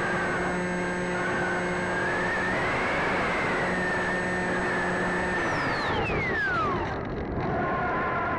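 Electric motor and propeller of a Sky Surfer model glider, heard close up from the onboard camera, whining steadily in flight. About five and a half seconds in, the pitch falls away quickly as the motor winds down.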